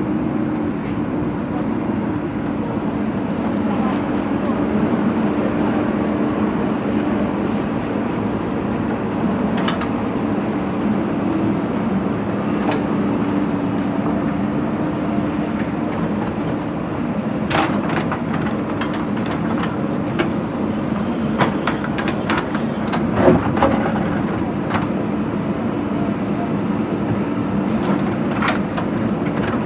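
JCB backhoe loader's diesel engine running steadily under work, with a cluster of sharp knocks and clanks about two-thirds of the way through as the bucket strikes brick and stone.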